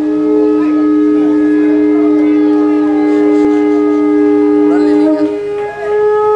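Two conch shells (shankha) blown together in long, steady notes at two different pitches, the traditional sounding of the conch at aarti. The lower conch breaks off a little after five seconds and sounds again near the end.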